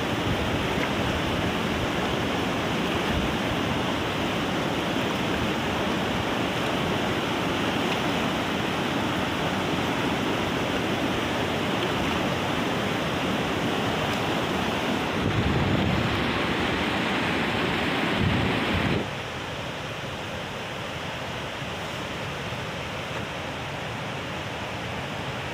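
Steady rush of water in a rocky mountain stream. About three-quarters of the way through it drops to a quieter, even hiss.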